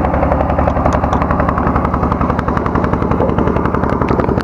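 Small boat engine running steadily with a fast, even chugging beat; it cuts off abruptly near the end.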